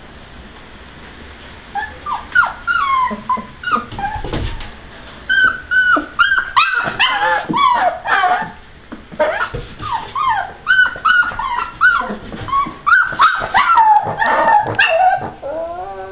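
Blue nose pit bull puppy whimpering and yipping: a long run of short, high cries, many falling in pitch, starting about two seconds in and coming thick and fast through the second half.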